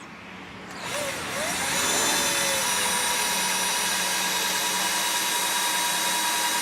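Electric drill starting about a second in, its pitch rising as it spins up, then running at a steady speed.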